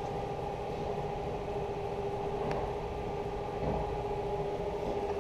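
Steady mechanical hum: an even drone holding one constant pitch.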